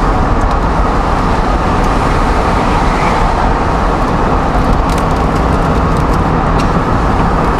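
Loud, steady rush of wind and road noise inside a moving chase car in a storm, with a few scattered ticks of rain striking the windshield.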